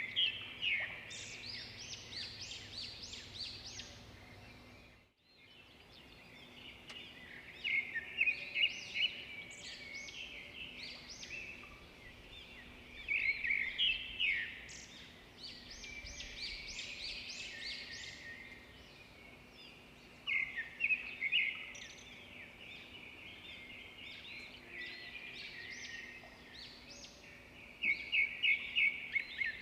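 Songbird singing outdoors: bursts of rapid, high chirping notes that repeat every six to seven seconds over a steady background hiss, with a brief dropout about five seconds in.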